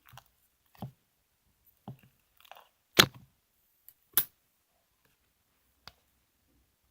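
Several short, irregular knocks and clicks, the two loudest about three and four seconds in, with fainter ones around them.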